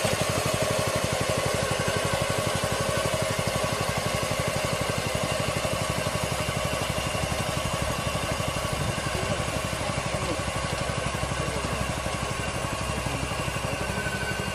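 Lettuce harvesting machine running steadily, its engine beating fast and evenly, with a steady whine above it.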